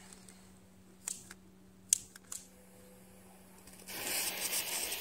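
A handheld lighter clicked several times, one click much louder than the rest, then from about four seconds in a steady hiss as its flame is held to a firecracker's fuse.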